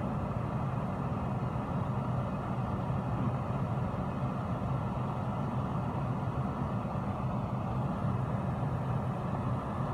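Steady low rumble of a car heard from inside its cabin, with no sudden sounds.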